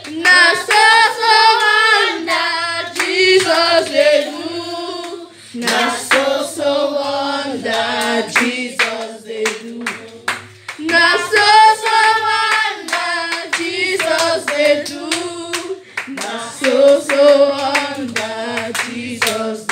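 A girl singing a song into a handheld microphone in phrases with a wavering pitch, while hands clap steadily on the beat throughout.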